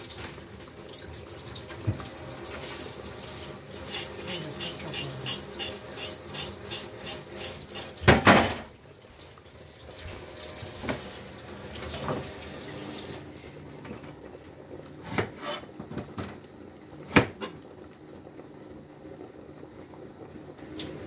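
Tap water running into a sink while burdock root is scrubbed with a metal scouring pad, in quick rhythmic strokes. A loud clatter comes about eight seconds in; the water stops a few seconds later, followed by a few sharp knocks.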